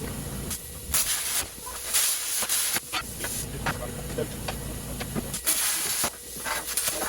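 Several short bursts of loud hissing, each about half a second to a second long, over a low steady hum.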